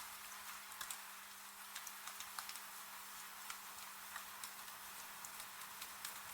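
Wood fire crackling, with irregular sharp pops and snaps, over a steady soft hiss of rain.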